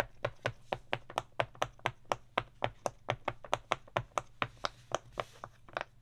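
Black silicone push-pop fidget board, fingers pressing its bubbles one after another in a quick, even run of sharp pops, about four or five a second.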